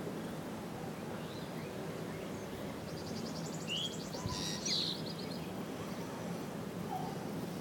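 Steady background hum and noise with short high bird chirps scattered through, and a quick rapid high trill a few seconds in.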